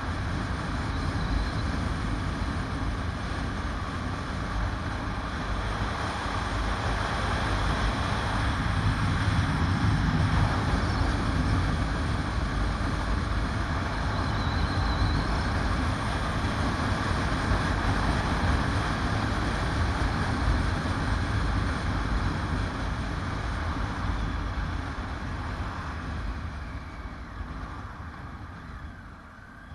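Motorcycle riding along a mountain road, its engine and rushing wind heard together over the bike-mounted camera's microphone. The sound dies down near the end as the bike slows into a hairpin bend.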